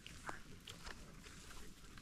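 Faint footsteps crackling on twigs and dry leaf litter, with brush rustling, as someone walks along a woodland trail: a scatter of short, irregular crackles.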